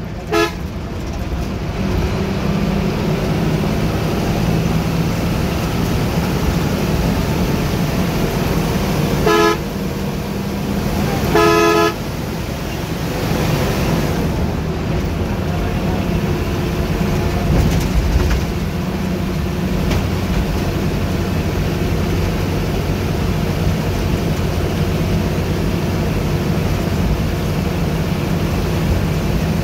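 Steady drone of a bus engine and road noise from inside a moving bus. A vehicle horn gives a brief toot at the very start, then two blasts about two seconds apart, roughly a third of the way in.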